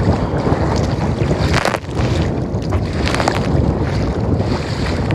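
Strong wind buffeting the microphone in a low, steady rumble, with choppy waves splashing against the kayak's bow, a few sharper splashes standing out.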